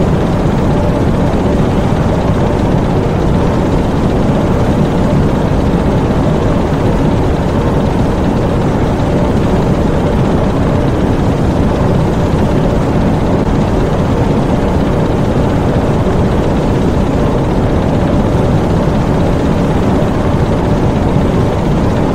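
Diesel engines running in a U-boat engine room: a loud, steady, dense engine noise, mostly low in pitch, that does not change.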